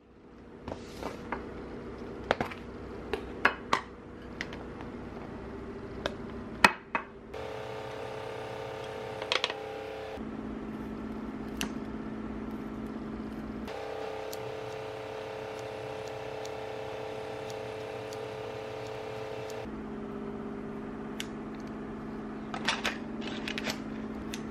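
Kitchen handling sounds as a lunch is packed into a glass food container: sharp taps and clinks on the glass and counter in the first seven seconds, then kitchen scissors snipping meat patties, over a steady hum.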